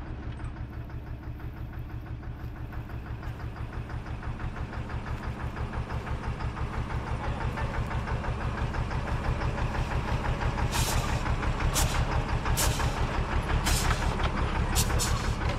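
Vehicle engine running with a steady low throb and a fast pulsing beat, growing gradually louder. From about two-thirds of the way in, short sharp hissing bursts cut in at irregular intervals.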